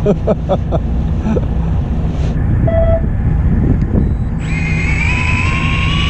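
Fishing boat's engine running with a steady low rumble. About four seconds in, a whine sets in and slowly climbs in pitch as the engine is throttled up.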